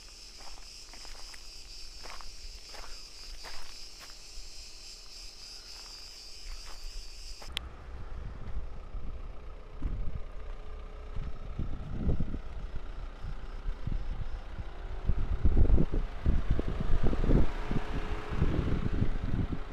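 Cicadas buzzing steadily, with footsteps on dry ground. About seven and a half seconds in the buzzing cuts off abruptly and gives way to wind buffeting the microphone, gusting louder near the end.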